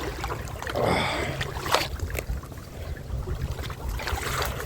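Water sloshing and splashing around a person's legs as he wades upriver through a shallow river, with a low wind rumble on the microphone. There is a brief pitched sound about a second in and a sharp snap or knock a little later.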